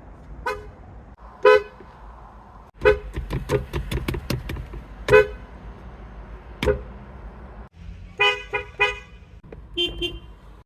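Car horn sounding in a series of short toots, several in quick succession, with a few sharp clicks among them.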